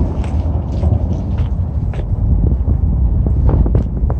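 Wind buffeting the microphone: a loud, steady low rumble, with a few faint short ticks scattered through it.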